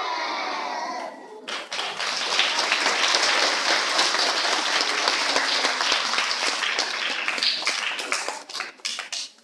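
A group of young children's voices held together for about the first second and a half, then a room full of people applauding for about seven seconds, thinning to a few scattered claps near the end.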